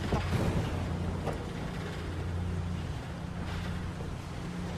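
A steady low engine hum with a faint hiss over it and one or two faint knocks, from the film's soundtrack.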